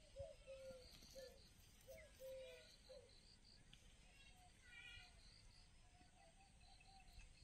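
Near silence: faint outdoor ambience, with a string of faint short calls during the first three seconds, a faint high insect-like pulsing, and a faint higher call about five seconds in.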